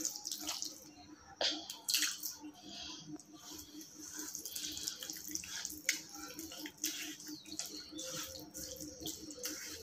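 A hand squeezing and kneading wet grated bottle gourd with gram flour and water in a steel bowl: irregular wet squelches and squishes with a few sharper clicks against the bowl. A faint low hum pulses about four times a second underneath.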